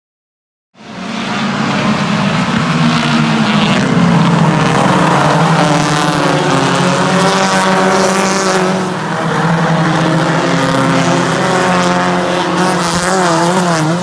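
Several compact race cars' engines running hard together, a loud, steady blend of engine notes whose pitch wavers as the cars go through the turns. The sound starts abruptly about a second in, and the pitch wobbles quickly near the end as engines rev up and down.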